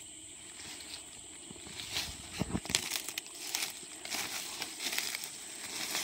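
Footsteps crunching and rustling through dry leaf litter, twigs and undergrowth: irregular crackles and snaps, sparse at first and busier from about two seconds in.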